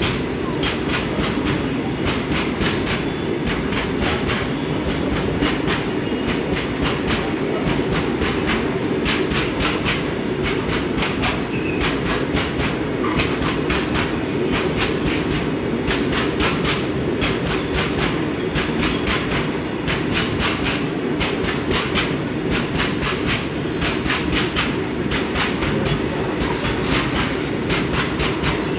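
Freight train of open-top box wagons rolling past, its wheels clattering in a steady run of clacks over the rail joints under a continuous rumble.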